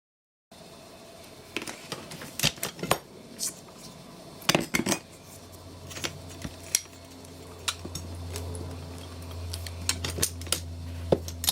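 Irregular sharp clicks and taps of small hard parts and tools being handled while an 18650 battery pack is taped up. A low steady hum grows in from about halfway through.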